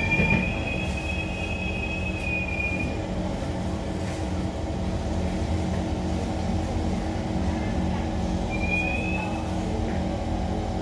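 SMRT C151 metro train running through a tunnel and into the next station, heard from inside the car by the doors: a steady rumble and hum, with a brief high squeal in the first few seconds and again near the end.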